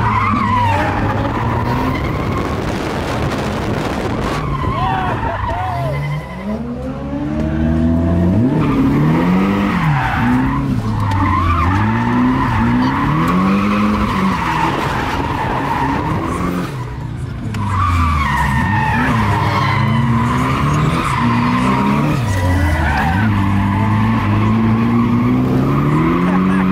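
Nissan Silvia drift car's engine revving up and down over and over through a drift run, with the tyres squealing and skidding, heard from inside the cabin. The engine note climbs and drops every second or two, easing off briefly twice.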